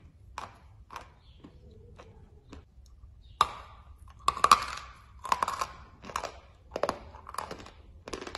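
Biting and chewing a chalk tile: a few light chews, then a sharp crunchy bite about three and a half seconds in and the loudest crunch a second later, followed by steady crunchy chewing about twice a second.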